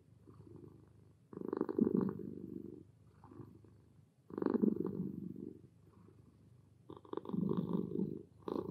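Tabby kitten purring, swelling louder three times about every three seconds with quieter purring in between.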